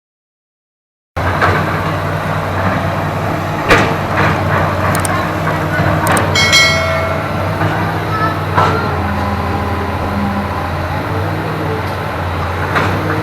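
Hydraulic excavator's diesel engine running steadily under working load, starting abruptly about a second in, with several sharp clanks and a short high squeal about six seconds in.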